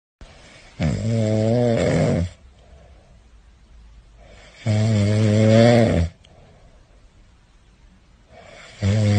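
Pomeranian puppy snoring in its sleep: three long, pitched snores about four seconds apart, the last starting near the end, with faint breathing between them.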